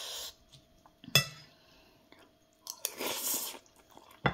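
A person eating salad close to the microphone: two brief hissy slurps through pursed lips, one at the start and one about three seconds in, with chewing between them and sharp mouth or fork clicks about a second in and near the end. A faint steady hum runs underneath.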